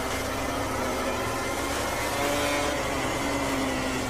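A pack of MotoGP racing motorcycles running at high revs, many engine notes overlapping, with one engine's pitch climbing about halfway through.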